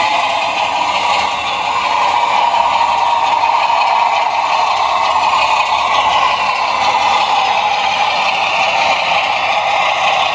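Heljan model parcels unit running along the track: a steady motor whine with wheel rattle on the rails, growing a little louder about two seconds in.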